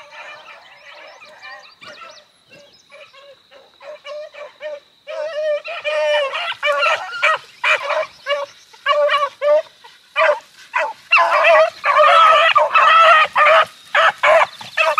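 A pack of beagles baying as they run a rabbit's track. The calls come faint and spaced at first, grow louder about five seconds in, and run together into a near-continuous chorus of several hounds in the last few seconds.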